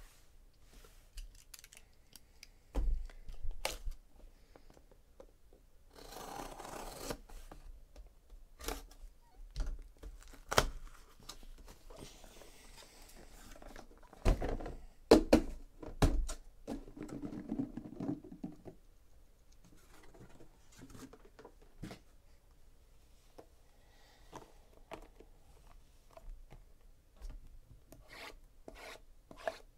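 Sealed cardboard case being opened by hand: the taped seam torn in a second-long rip, flaps pushed open with cardboard rubbing and scraping, and sharp knocks, loudest about halfway through. Near the end the twelve cardboard hobby boxes are lifted out and set on each other in quick light clicks and taps.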